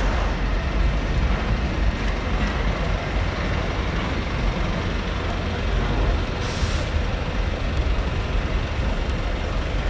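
City street traffic: a steady low rumble of buses and other vehicles, with a short hiss of air brakes about six and a half seconds in.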